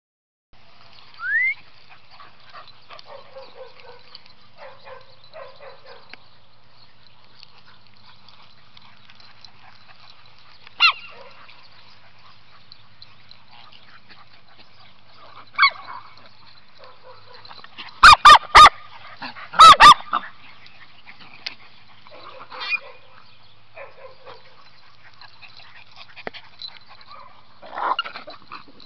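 Small dogs barking in short, sharp yaps scattered through, the loudest a quick run of about five barks about two-thirds of the way through.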